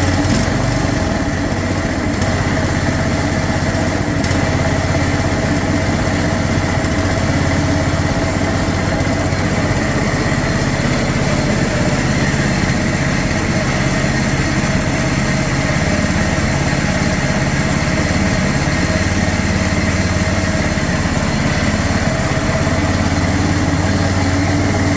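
Briggs & Stratton engine of a John Deere Z225 zero-turn mower running steadily at a fast idle, freshly started with a little choke after a carburetor and head gasket repair. The idle is set too high.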